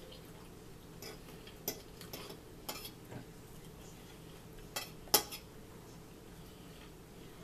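Forks clinking and scraping against dinner plates while eating: several short, sharp clinks, the loudest about five seconds in.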